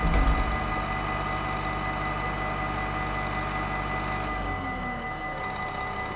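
Railway level-crossing warning bells ringing steadily while the barriers are down, over a low engine hum that drops away about four and a half seconds in. A short low thump comes right at the start.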